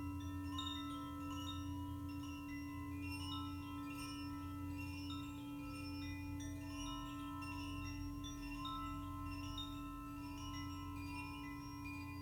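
Chime notes ringing out one after another, overlapping and fading, over a steady held tone and a low hum.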